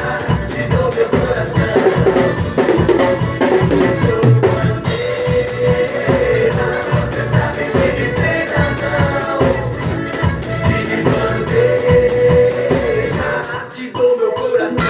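Drum kit played along with a recorded axé song, with singing over a busy, driving beat. The music drops out briefly near the end, then comes back in.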